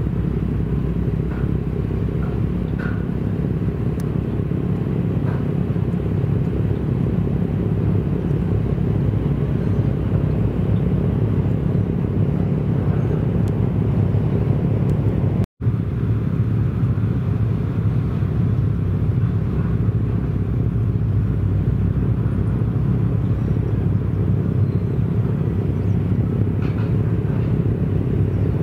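A boat engine running in a steady low rumble, with no distinct events. The sound cuts out for a moment about fifteen seconds in.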